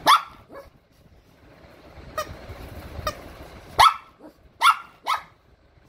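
Shih Tzu barking: about seven short, sharp barks at irregular intervals, the loudest right at the start and three close together in the second half.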